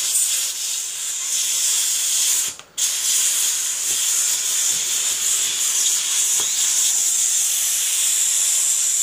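Kärcher SC4 steam cleaner jetting steam from its hand nozzle, a steady high hiss that stops for a moment about two and a half seconds in, then carries on.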